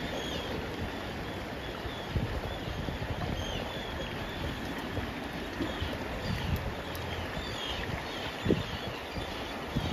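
Lagoon water lapping and gurgling around chunks of floating glacier ice, with wind rumbling on the microphone. Faint high chirps repeat every second or so, and there is a brief louder knock about eight and a half seconds in.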